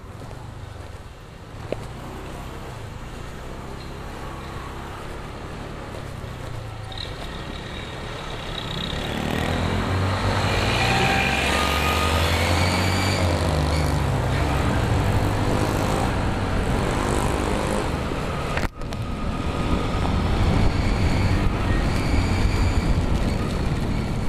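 Motorcycle on the move on a wet road: the engine runs at low speed, then picks up and speeds up about eight seconds in, with the rush of wind and wet-road noise growing louder as it goes.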